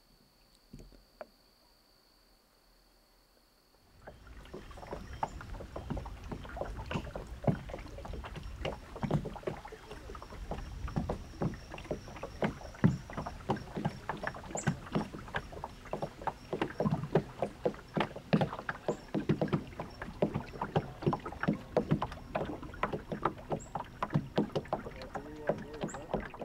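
Water lapping and splashing against the hull of a small paddled boat under way, a quick irregular patter of slaps over a low rumble, starting about four seconds in. Before that, near quiet with a faint steady high tone.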